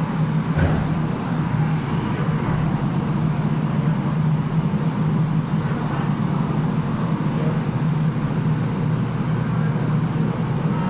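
Montreal metro train standing at a station platform, heard from inside the car: a steady hum with a constant low drone. A single brief knock comes about half a second in, as the train settles to a stop.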